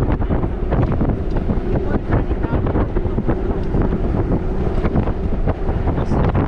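Safari vehicle driving, a steady low rumble with frequent knocks and rattles, and wind buffeting the microphone.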